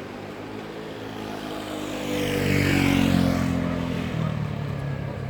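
A motor vehicle passing close by. It gets louder to a peak about three seconds in, then fades as it moves away, its engine note dropping in pitch as it goes past.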